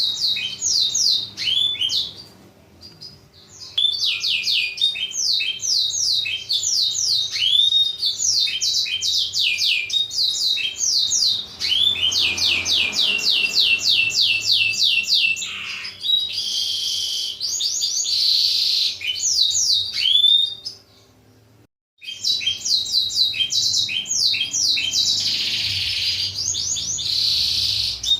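Blackthroat (black-throated canary) song: long runs of rapid, repeated downward-sweeping whistled notes mixed with buzzy stretches, with a short lull about two seconds in and a brief break a little past 21 seconds.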